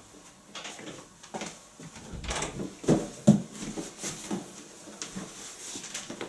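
Irregular handling noises: a series of short clicks, knocks and rustles, the two loudest knocks coming close together about three seconds in. No motor is running.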